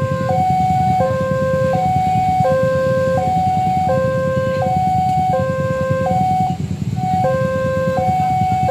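Railway level-crossing warning alarm sounding a two-tone signal that switches between a lower and a higher pitch about every 0.7 seconds, with a short hiccup in the pattern about two-thirds of the way through. A steady low rumble runs underneath.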